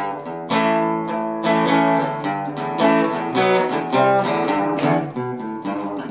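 Background music: a guitar playing plucked notes and chords, a new one about every half second.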